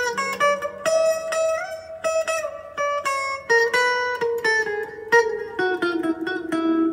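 Fender Stratocaster electric guitar played clean through a Fender amp: a quick run of single picked notes, with a string bend upward about a second and a half in.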